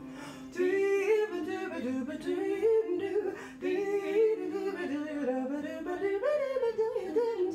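A woman singing unaccompanied, a melody of gliding, bending notes without clear words.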